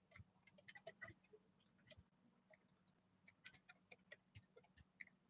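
Faint, irregular light clicks, some coming in quick clusters, over a faint steady low hum.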